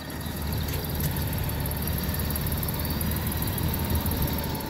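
Low, steady engine rumble that swells slightly at the start and then holds.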